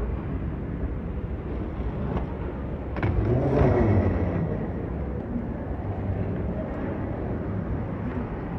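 Steady low rumble of a busy airport terminal hall, with a louder swell about three seconds in that lasts about a second.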